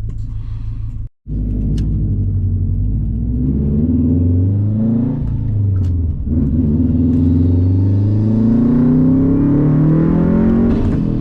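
2011 Subaru WRX's turbocharged flat-four accelerating hard under boost, its pitch rising, dropping at a gear change about five seconds in, then climbing again. The sound cuts out briefly about a second in.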